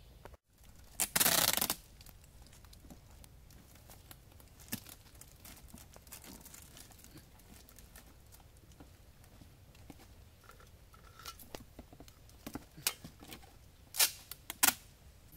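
Adhesive tape being pulled off its roll: a long loud rip about a second in, scattered small rustles and clicks of handling, then several short sharp rips near the end.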